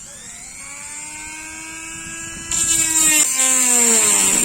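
An electric motor running with a whine that slowly rises in pitch, turns louder with a hiss added about two and a half seconds in, then drops in pitch near the end.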